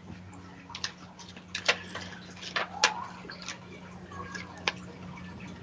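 A handful of sharp clicks and taps at irregular intervals, a few clustered about one and a half to three seconds in, over a steady low electrical hum.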